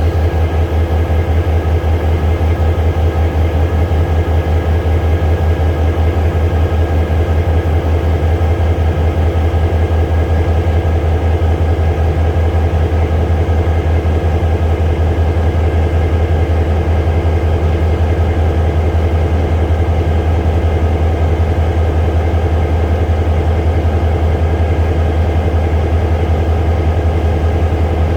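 Diesel engine of the V-Train sightseeing train idling steadily while it stands at the station: a loud, even low drone that does not change.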